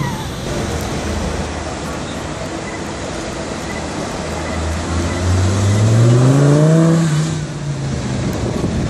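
Street traffic noise, then a Lamborghini Gallardo Superleggera's V10 pulling away, its engine note rising steadily for about two seconds and cutting off abruptly about seven seconds in.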